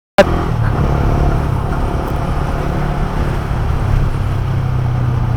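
Motorcycle engine running steadily while riding in traffic, a low even drone with road and wind noise. It cuts in suddenly after a split second of silence.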